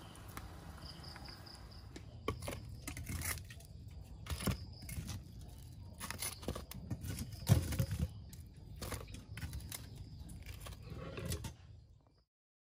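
Irregular clicks and knocks of kitchen tongs handling pieces of crispy fried chicken and setting them on a tray, the loudest knock about seven and a half seconds in. The sound stops abruptly shortly before the end.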